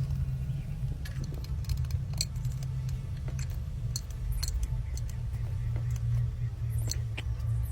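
A steady low hum with scattered sharp metallic clicks and ticks over it, starting about a second in and coming irregularly until near the end.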